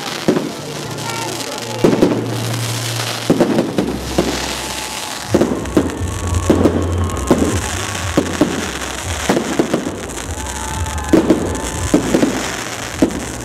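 Fireworks display: aerial shells bursting overhead in a continuing series of sharp bangs, one or two a second.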